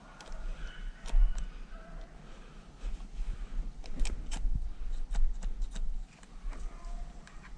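Irregular sharp clicks, snaps and crackles, thickest about four to six seconds in, like footsteps and brush crackling while walking through cover, over a low rumble.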